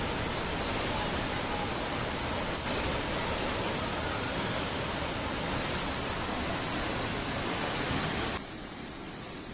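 Muddy floodwater rushing down a street in a torrent during heavy rain, a steady rush of water noise that drops abruptly in level near the end.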